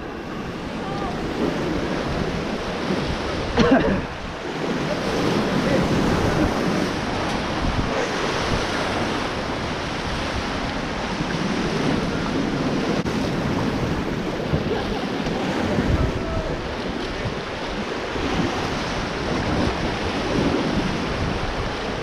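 Rushing whitewater of a Ganges rapid churning around the raft, a steady roar of water with wind buffeting the action-camera microphone. A brief louder burst about four seconds in.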